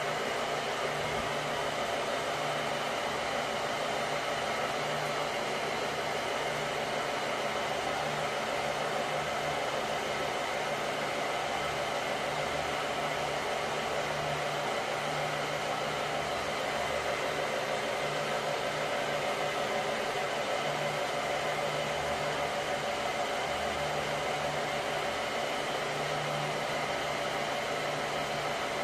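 Swimming-pool filter pump running steadily: an electric motor whir with water rushing through the pipes and strainer, and a low hum that pulses faintly. The drain valve is being closed gradually so the pump draws its suction through the vacuum hose.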